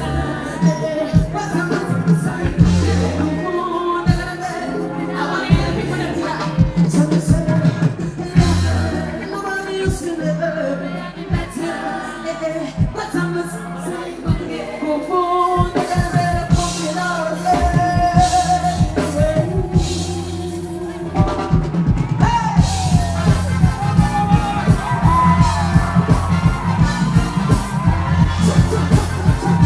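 Live pop music: a woman singing over a backing track with a steady drum beat. The beat becomes busier and more driving about two-thirds of the way through.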